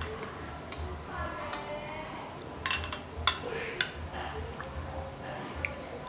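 Metal ladle clinking against a ceramic soup bowl as the soup is stirred: a handful of sharp, ringing clinks, the loudest a little past halfway.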